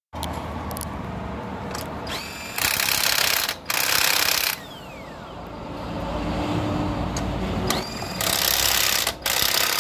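Pneumatic impact wrench running on a car wheel's lug nuts. It goes twice: each time a rising whir runs into about two seconds of loud rattling hammering, with a brief break partway through.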